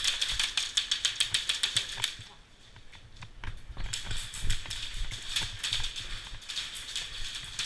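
Airsoft electric guns firing on full auto: a rapid string of gearbox-driven shots, about a dozen a second, for the first two seconds, then more scattered shots after a short pause.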